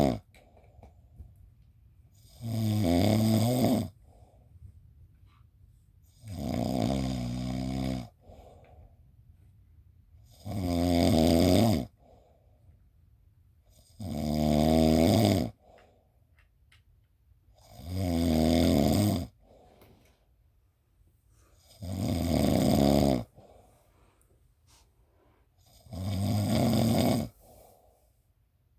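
Snoring in a slow, even rhythm: a loud snore about every four seconds, each lasting about a second and a half and followed by a short, softer breath.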